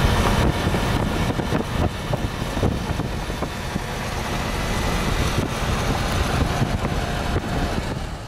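Yamaha YZF-R1M sport motorcycle's inline-four engine running at speed, a dense, steady noise at an even level.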